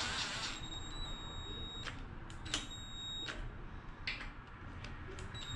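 Cordless drill with a socket extension running bolts into an engine housing: a high-pitched motor whine in about the first second and again near the end, with a few sharp clicks between.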